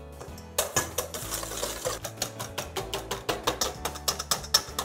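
Wire whisk beating egg yolks and sugar in a stainless steel bowl: rapid, even clicking of the wires against the metal, starting about half a second in.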